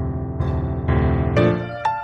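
Background music led by piano: a held chord with new notes struck about one and a half seconds in.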